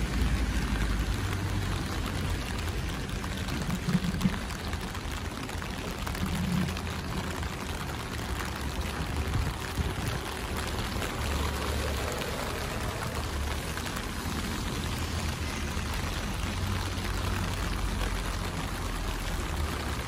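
Steady rain falling on wet stone paving, an even hiss of water. A couple of brief knocks come about four seconds in.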